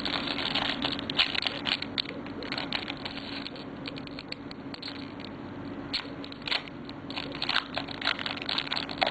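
Foil Yu-Gi-Oh booster pack wrapper crinkling and crackling as it is handled and opened, with the cards being handled; a dense run of irregular crackles and clicks.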